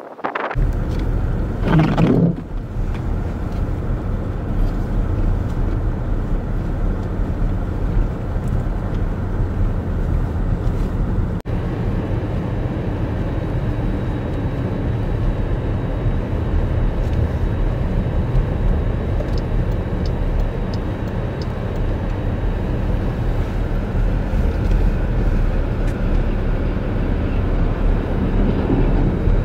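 Steady low rumble of a vehicle driving on a snow-covered highway, heard from inside the moving vehicle.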